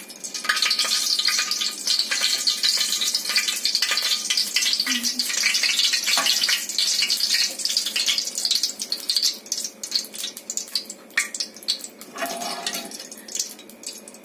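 Cooking oil being poured into a kadhai on a lit gas burner: a dense crackling hiss that starts about half a second in and thins to scattered crackles in the second half.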